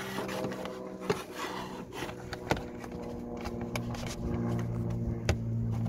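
Plastic engine cover being fitted back over a BMW N47 diesel engine: rubbing and scraping of plastic against the engine bay, with three sharp knocks as it is pressed into place, about a second, two and a half seconds and five seconds in. A steady low hum runs underneath.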